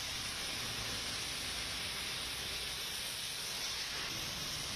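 Heavy rain pouring steadily onto a wet road, a constant even hiss, with a faint low hum of traffic driving through underneath.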